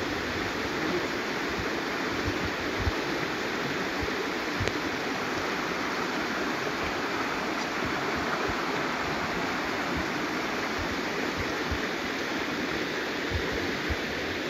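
Shallow rocky stream, its water rushing steadily over and between stones, with occasional short low thumps.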